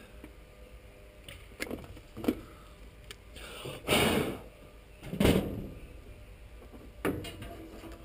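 Hands working the wiring inside a package unit's sheet-metal control compartment: scattered knocks and clunks, a short scraping rustle about four seconds in, and a sharper knock just after it.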